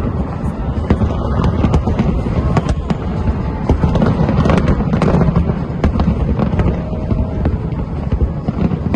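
Large fireworks display: a continuous rumble of booming shells with many sharp bangs and crackles layered over it.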